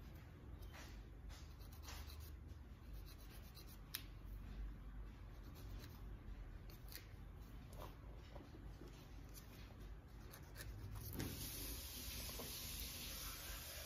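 Hand nail file rasping in short, quick strokes across a toenail. About eleven seconds in, the strokes stop and a steady hiss takes over.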